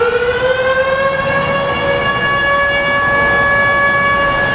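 Fire company's major outdoor warning siren sounding during a pager-triggered siren test. One pitched tone with several overtones climbs to its top pitch in the first second or so and then holds it steady.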